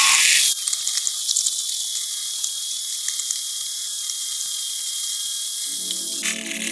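Ryobi OCS1830 18-volt cordless chainsaw running and cutting into a tree stump: a high-pitched hiss with a steady whine. It is loudest for the first half second and cuts off suddenly near the end, as music comes in.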